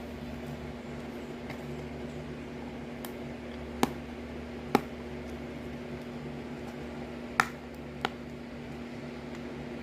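Four short, sharp clicks or taps, spaced irregularly, over a steady low electrical hum.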